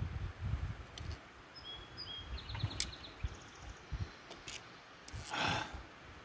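Outdoor ambience with birds chirping, a few sharp clicks as an arrow is nocked onto a compound bow, and a short breath-like rush of noise about five seconds in.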